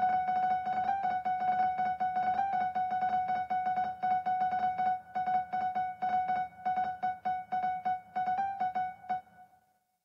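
Computer-played piano from music notation software playing back a black MIDI passage: a dense run of very fast repeated high notes with quick flourishes. It stops abruptly about nine seconds in and rings away.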